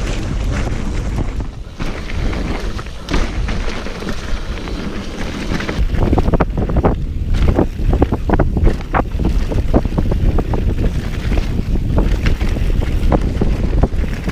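Mountain bike riding fast down a rough dirt trail: wind buffeting the camera microphone over the rumble of tyres, with sharp knocks and rattles of the bike over roots and rocks that come thicker from about six seconds in.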